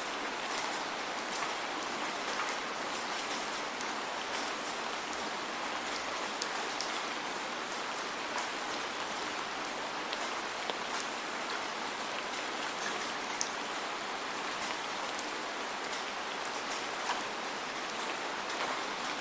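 Steady falling rain: an even hiss with many separate drops ticking sharply on a hard surface throughout.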